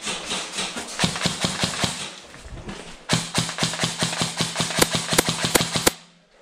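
Airsoft electric rifle firing on full auto, its gearbox motor whirring under a rapid string of shots: a short burst about a second in, then a longer burst from about three seconds in that cuts off suddenly near the end.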